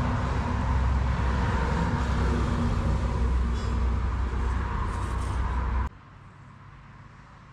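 Steady low outdoor rumble, like road traffic, that cuts off suddenly about six seconds in, leaving a much quieter background.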